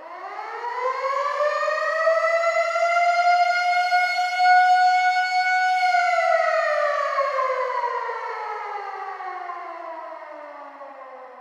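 Civil defense air raid siren sounding one wail: it starts from silence, rises in pitch over about two seconds to a steady high note, holds, then from about six seconds in slides slowly down and fades.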